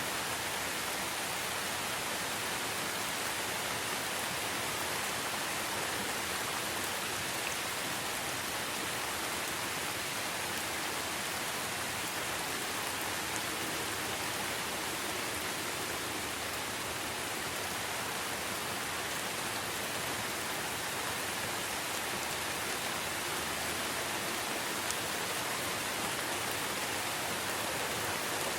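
Steady rain falling, an even hiss of many drops on surfaces with no single drops standing out.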